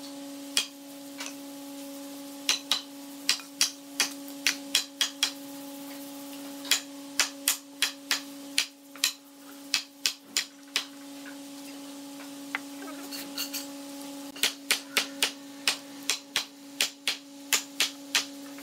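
Wooden mallet knocking on the top rail of a hardwood door-panel frame, seating its joints: three runs of quick knocks, about three a second, over a steady hum.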